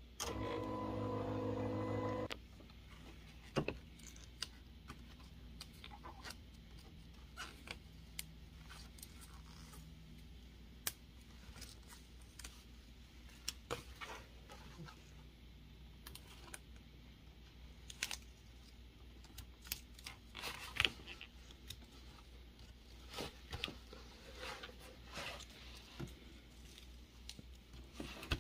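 A steady electronic buzz of one pitch lasts about two seconds at the start, followed by scattered small clicks and rustles of materials being handled.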